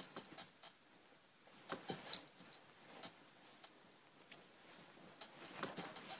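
Cat pawing and wrestling with a fabric blanket: flurries of rustling and scuffing, with a metal tag on its collar clinking, loudest about two seconds in.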